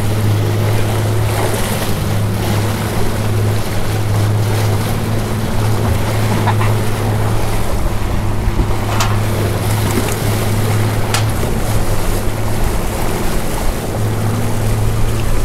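Boat engine running steadily at trolling speed with a constant low hum, over the rush of wake water along the hull and wind on the microphone. A few faint ticks come through partway in.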